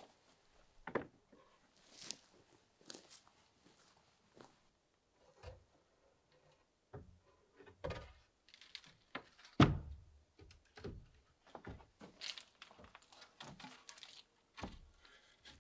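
Wooden pallets and boards being handled: scattered knocks and clunks of wood on wood, with one loud thud about ten seconds in.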